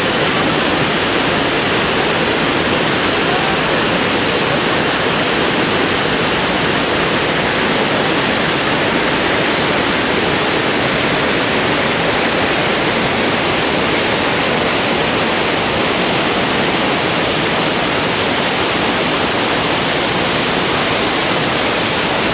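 Steady, loud rushing of water, even and unbroken throughout.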